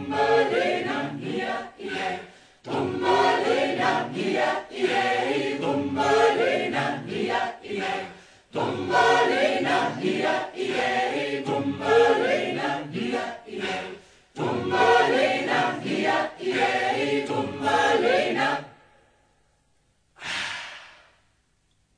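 A cappella choir singing in phrases, several voices together, ending about eighteen seconds in. A short breathy sound follows a couple of seconds later.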